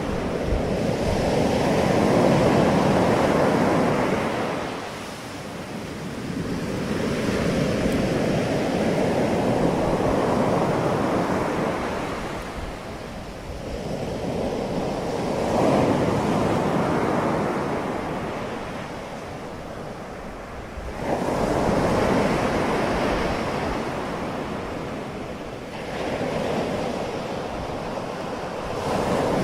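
Ocean surf breaking on a beach, waves surging in and washing back one after another, about every six seconds, the sharpest break a little past the two-thirds mark.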